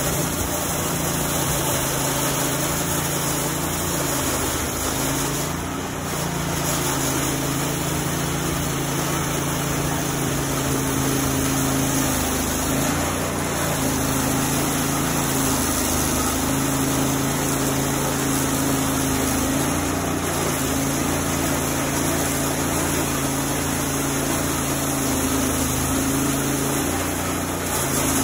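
Portable band sawmill running steadily as its saw head travels along a log, cutting it.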